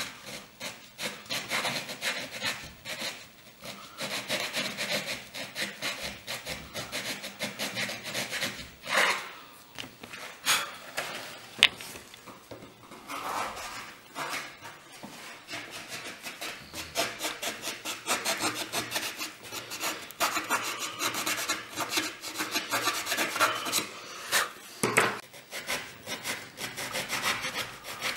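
A hand tool being worked quickly back and forth on the composite wing skin, a rasping, scraping sound of filing or sanding the edges of the cut-out opening in the wing tip.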